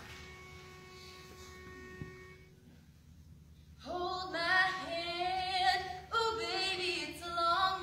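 A single steady note sounds for about two and a half seconds, a starting pitch; about a second after it stops, a girls' a cappella group starts singing in close harmony, without accompaniment.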